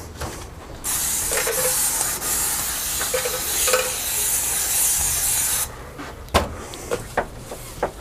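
Cleaner sprayed from a hand-held spray bottle onto a bicycle frame: a steady hiss of spray that starts about a second in and cuts off sharply about five and a half seconds in, followed by a few light clicks and knocks.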